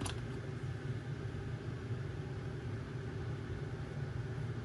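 Steady low mechanical hum of a kitchen fan, with a single short click right at the start.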